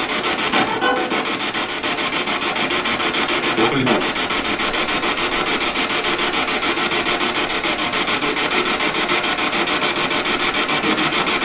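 Spirit box (ghost box) sweeping rapidly through radio stations, giving a steady, loud hiss of static chopped many times a second. Brief snatches of radio sound break through about one second and four seconds in.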